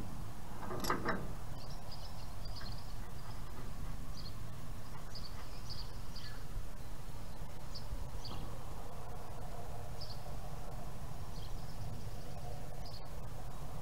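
Outdoor ambience: a steady low rumble with faint, scattered bird chirps. A single short click about a second in.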